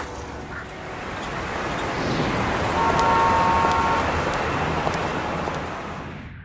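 Street traffic: a vehicle passing, its noise swelling to a peak in the middle and fading away near the end, with a brief steady high tone at the loudest point.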